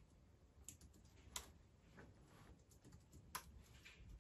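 Faint typing on a slim computer keyboard: irregular light keystrokes, with two sharper, louder key presses about two seconds apart.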